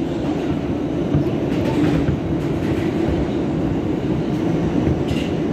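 R160B subway car with Siemens propulsion running along the track: a steady rumble of wheels on rail with a constant drone underneath and a few faint clicks.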